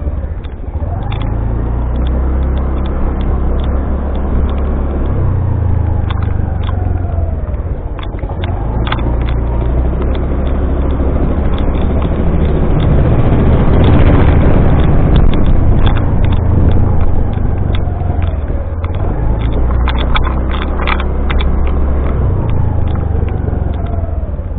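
Motorcycle engine running on the move, its low hum shifting pitch several times with speed and gear changes, under heavy wind noise and buffeting on the microphone. It grows louder about midway through.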